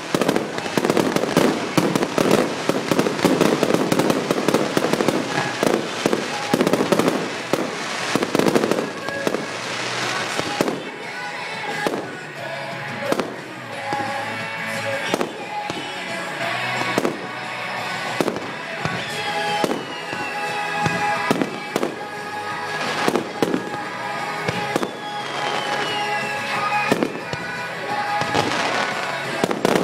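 Fireworks set to music: for about ten seconds a dense barrage of rapid bangs and crackling, then single shell bursts about once a second, with the music clearer between them.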